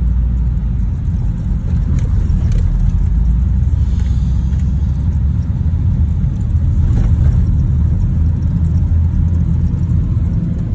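Interior noise of a car driving on a rough dirt road: a loud, steady low rumble of tyres and engine heard inside the cabin, with a few faint knocks.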